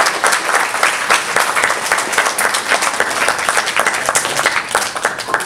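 Audience applauding, a dense patter of many hands clapping that stops fairly suddenly near the end.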